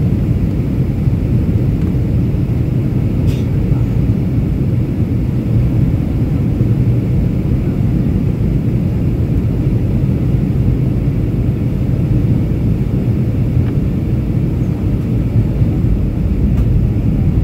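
Steady airliner cabin noise heard from a window seat during the descent to land: a constant low rumble of the jet engines and the air rushing past the fuselage.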